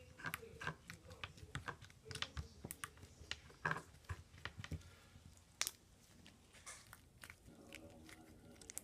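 Pink slime with beads mixed in, squished and poked by hand, making irregular clicks and crackles.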